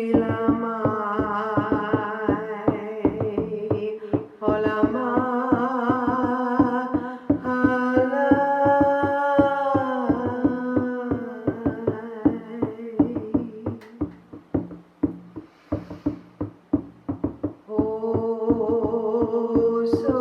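Wordless chanted singing in long held tones, stepping up in pitch about eight seconds in and back down two seconds later, over a steady, even drumbeat. The voice drops out for several seconds, leaving the drum alone, and returns near the end.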